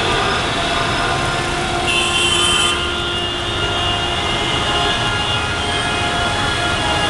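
Engine drone and road noise heard from inside a moving vehicle in traffic, steady throughout. A brief high-pitched hiss or squeal comes about two seconds in.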